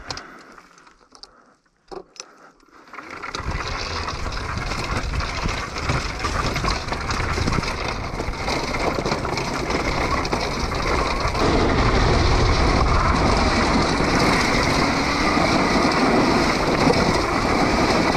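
Quiet with a few knocks for about three seconds, then the electric dirt bike rides off: a steady rush of wind on the rider's camera and tyres rolling over grass and stones, growing louder about halfway through.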